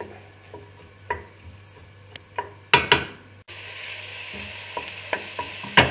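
Wooden spoon stirring a soffritto of chopped onion, celery and carrot in a stainless steel pot, knocking and scraping against the pot several times. From about halfway there is a steady sizzle of the vegetables sautéing in olive oil, the onion and celery turning translucent.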